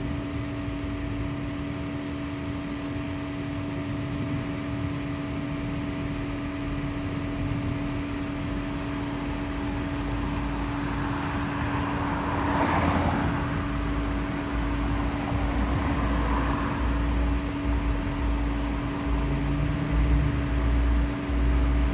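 Steady hum of an idling vehicle, with a passing car swelling and fading a little past halfway and a heavier low rumble in the later part.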